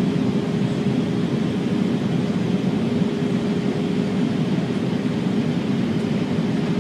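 Steady airliner cockpit noise inside an Airbus A340 flight deck: an even rush of engine and airflow noise with a constant hum running under it.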